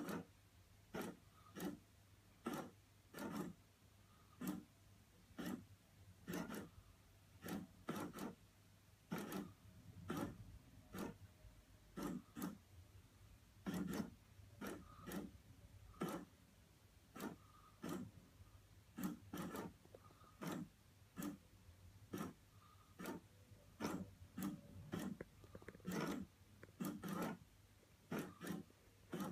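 PetSafe FroliCat Cheese electronic cat toy running, its plastic mice and mechanism scraping and clicking inside the cheese-shaped box in short rasping strokes, about one to two a second, over a faint steady hum.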